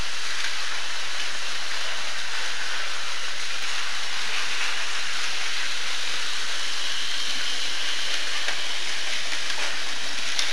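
Battery-powered Tomy toy train running along plastic track close by, its small motor and gears whirring in a steady, even hiss.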